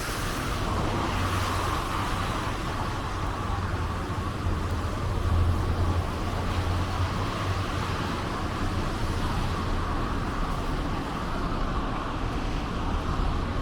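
Street traffic: cars moving slowly close by, a steady low engine rumble that swells about five seconds in.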